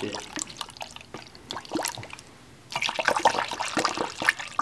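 Distilled water poured from a large plastic jug into a funnel, splashing and trickling into a car's cooling system as it is filled during a coolant flush. The pour falls quiet briefly about halfway, then comes back louder.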